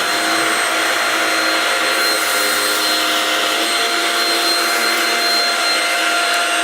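Shark Rocket Deluxe Pro stick vacuum running steadily on its level 2 carpet setting while vacuuming carpet, a constant motor whine over the rush of airflow.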